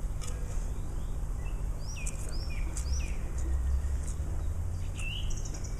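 Small birds chirping, short sliding notes that come in a cluster about two to three seconds in and again near the end, with a quick run of high notes at the very end. Under them runs a steady low background rumble, with a few faint sharp clicks.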